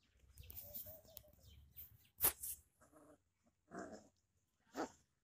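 A puppy making a few short vocal sounds, roughly a second apart. A sharp knock comes about two seconds in.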